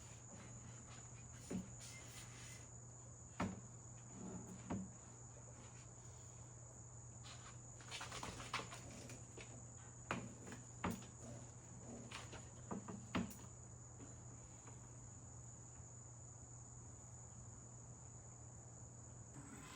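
Faint, scattered knocks and clunks as a wooden swing seat is jiggled back and forth on an electric trike, most of them in the first thirteen seconds or so. Under them runs a steady high insect drone, like crickets, and a low hum.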